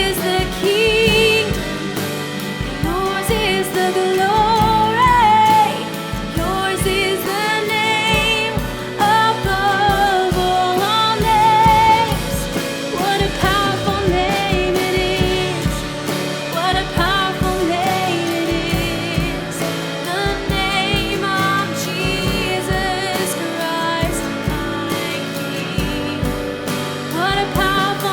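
Worship band playing a contemporary Christian song with a steady beat, with sung vocal lines heard over it.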